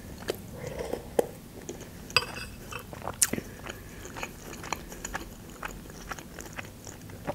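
Close-miked chewing and mouth sounds of a person eating, with many small, sharp clicks scattered throughout.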